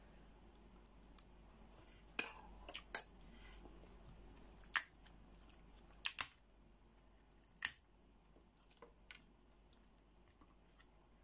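Sharp cracks and snaps of a cooked brown crab's shell being broken and picked apart by hand, about half a dozen crisp clicks between two and eight seconds in, then a few fainter ticks.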